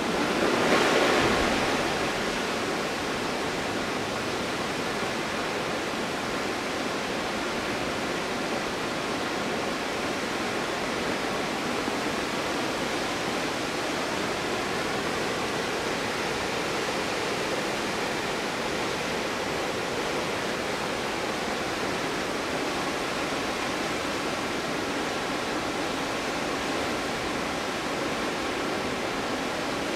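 Stuibenfall waterfall, water falling and crashing in a steady rush, briefly louder about a second in.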